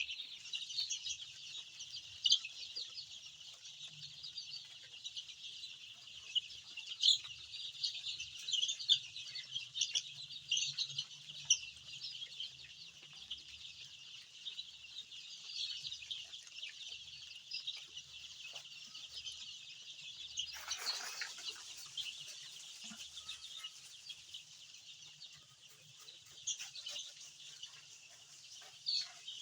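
A large flock of three-week-old chicks peeping continuously, many high chirps overlapping. About twenty seconds in, a brief rush of noise like a flutter of wings.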